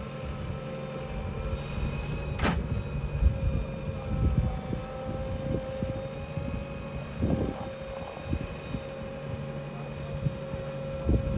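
JCB 3DX backhoe loader's diesel engine running steadily under working load, with a held high tone over it and scattered low knocks from the digging; a single sharp click about two and a half seconds in.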